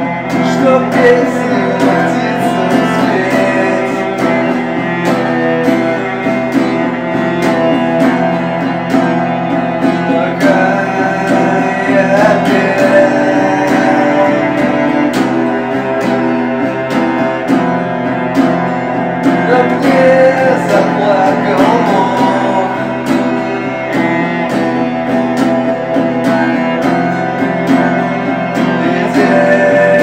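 Music: a song with guitar and a singing voice.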